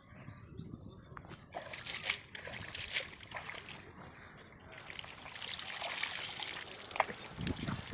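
Water trickling and splashing in a shallow pond as it is stirred by hand, with a few sharp knocks scattered through and a louder low slosh near the end.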